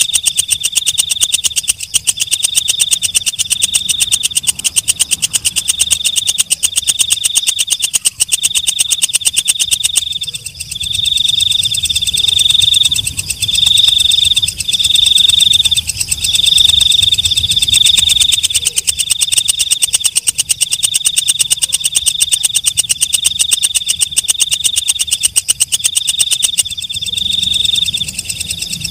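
Walang kecek katydid (bush cricket) stridulating: a continuous rapid ticking trill that swells into a louder, ringing chirp about once a second.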